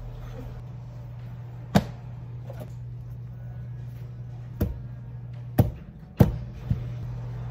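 Chef's knife cutting the ends off a hard spaghetti squash, the blade knocking sharply onto a plastic cutting board several times, the knocks irregular and one to three seconds apart.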